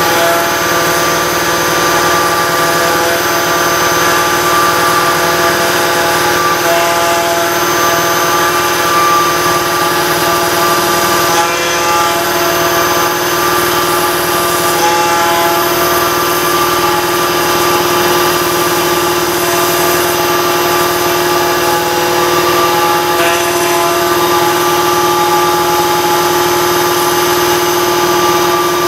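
Router spindle on a Torchmate CNC table running steadily as it cuts wet stone. It is a constant high whine made of several steady tones, holding an even level throughout.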